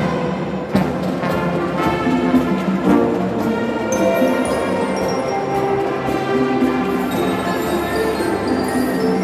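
Marching drum band playing: brass horns hold a slow, sustained melody with the band's drums, with one sharp hit about a second in.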